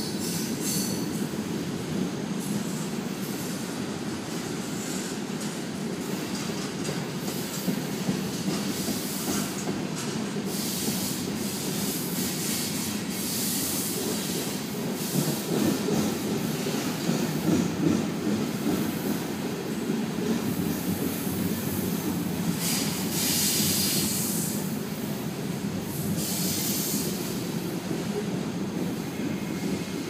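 Freight cars rolling slowly over a steel railroad bridge overhead: a steady rumble of wheels on rail, with high-pitched wheel squeal rising and fading several times and occasional knocks.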